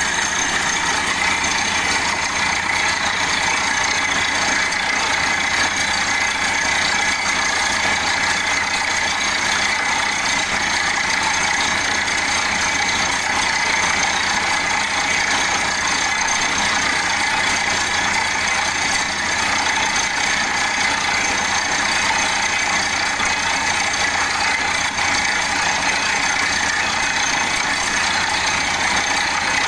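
Borewell drilling rig running steadily while drilling: a continuous, unbroken engine drone with a hiss over it as the drill pipe turns in the hole.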